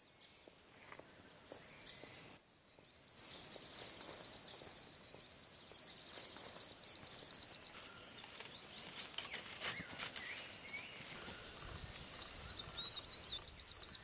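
Outdoor ambience with a very high, rapid trill from a wild animal calling, repeated four times in phrases of one to two seconds, and a few short chirps in between.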